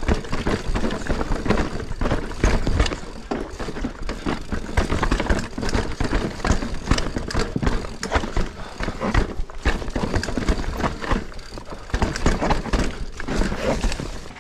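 Mountain bike descending rough rocky singletrack: a continuous, irregular clatter and rattle of tyres, suspension and frame over rocks, with a low rumble underneath.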